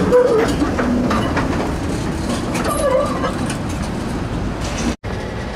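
Vintage PCC streetcar rolling past on its rails: a steady rumble with scattered clacks of the wheels over the track.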